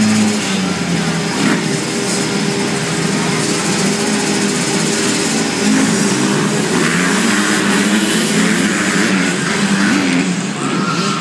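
A pack of small motocross bikes, among them a Honda CRF150R, revving together at the starting gate, then accelerating away as one about halfway through, their engine notes rising and falling as the riders work the throttles.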